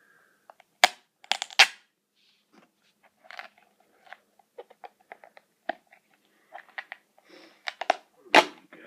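Plastic wrapping and seals being picked at and peeled off a small cardboard accessory box: irregular crinkles and sharp clicks, loudest about a second in and again near the end.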